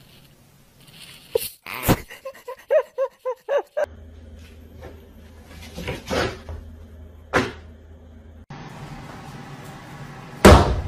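A spin-mop bucket's basket whirring steadily while a cat spins inside it, with a couple of knocks. Before that comes a quick run of short pitched squeaks. Near the end a cat skidding on a wooden kitchen floor ends in one loud thump, the loudest sound here.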